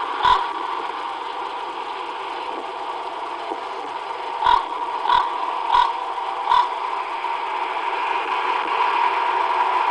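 Steady hiss and hum of a field recording played through a computer speaker and re-recorded. A sharp click comes right at the start, and four short knocks follow near the middle, about two-thirds of a second apart.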